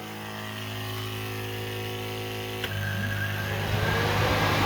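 A homemade side-by-side air conditioner is running with a steady electric hum. About two and a half seconds in a click sounds, and its 12-inch fan spins up with a rising whine and a growing rush of air.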